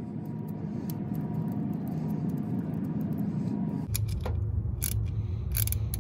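Hand ratchet with a small socket clicking as it tightens the bolts on an automotive main fuse block, with light metallic clicks of the bolts being handled before it. A steady low rumble runs underneath.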